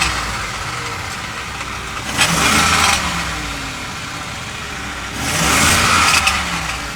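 Car engine idling and revved twice, about two seconds in and again about five seconds in, each rev rising and settling back to idle, heard from beneath the car. The revs are meant to bring out an exhaust rattle that the mechanic suspects is broken-apart honeycomb inside the passenger-side catalytic converter.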